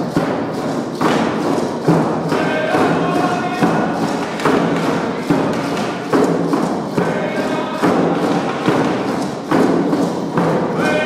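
Hand-held frame drums beaten in a steady rhythm, a heavy beat a little faster than once a second with lighter strokes between, with a group of voices singing a chant over them.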